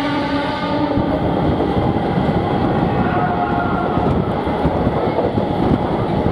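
Diesel-electric multiple unit (DEMU) passenger train accelerating past at speed, its wheels and coaches making a dense, steady rattle on the rails. A steady pitched tone fades out about a second in.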